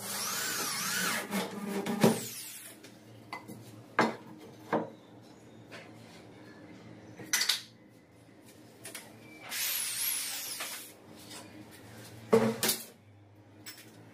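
Corded electric drill run in two short bursts, its pitch wavering, boring into the bottom track of a sliding wardrobe door; the first burst comes at the start, the second about ten seconds in. Sharp knocks and clatters of handling in between.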